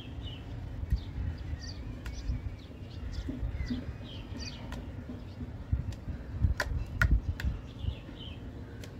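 Hands squishing, pressing and stretching a thick slime on a plastic plate: soft sticky squelches with a few sharp clicks and pops, the loudest a little past halfway. Small birds chirp now and then in the background over a low rumble.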